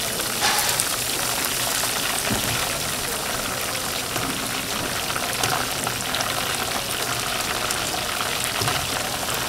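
Food deep-frying in a vat of hot oil: a steady sizzle with fine crackles throughout.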